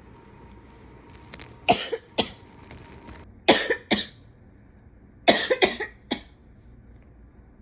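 A person coughing while sick, in three short fits of two or three coughs each, the last fit ending about six seconds in.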